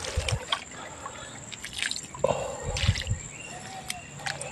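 Liquid drench poured from a hand-held container onto wet soil at the base of a chili plant, splashing and dripping irregularly and soaking in with a squelch, with a couple of soft thumps.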